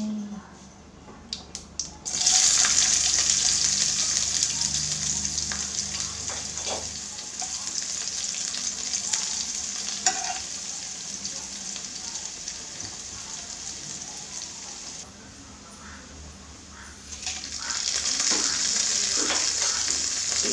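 Chopped onions hitting hot oil in a kadai: a sudden loud hiss about two seconds in that settles into steady frying and sizzling, stirred with a spoon. The sizzle eases for a moment, then flares up loudly again near the end as more food, dried red chillies, goes into the oil.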